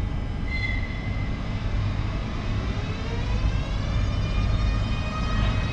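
EP20 electric locomotive approaching at slow speed with its train: a low rumble, and from about halfway a whine of several tones from its traction drive that rises slightly and then holds steady.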